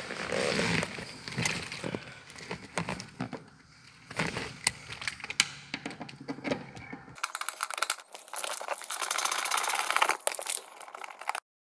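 Rustling and knocking of hands handling plastic interior trim, then a socket ratchet clicking rapidly as a nut is backed off; the sound stops abruptly near the end.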